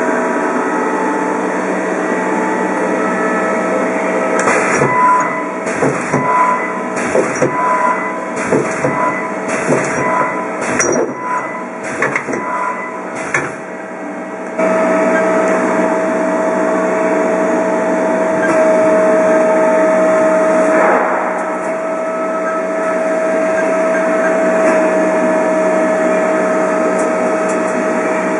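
Haas HL-2 CNC lathe running with a steady hum; from about four seconds in, its 10-station turret indexes through a string of programmed tool changes, a run of clunks and knocks lasting about ten seconds. After that a steady whine of the machine running takes over.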